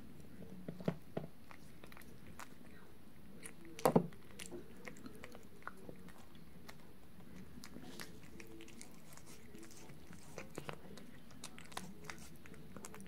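A cat biting and chewing pieces of food, heard close up as scattered small clicks, with one louder knock about four seconds in.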